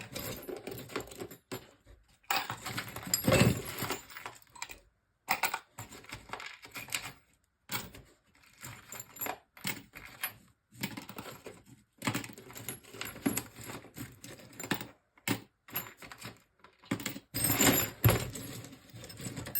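Pieces of scrap copper and brass clinking and clattering as they are picked out of a box and sorted by hand: irregular runs of metallic rattles and clinks with short pauses between.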